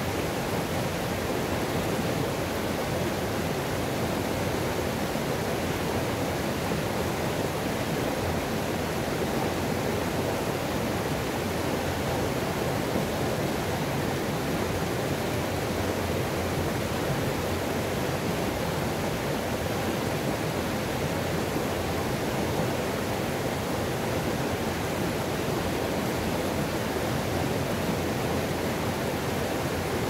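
Rushing white water of a highland river cascading over a small rock fall into a pool, a steady, unbroken roar.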